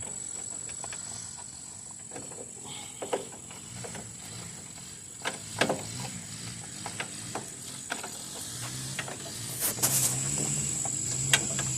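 Scattered small plastic clicks, taps and scrapes as a turn signal bulb socket is worked back into a car's headlight housing and lined up with its grooves. A faint low hum comes in late.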